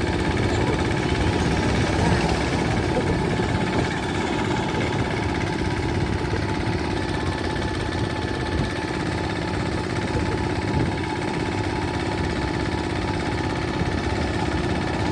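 Heavy diesel engine running steadily with a low, even rumble.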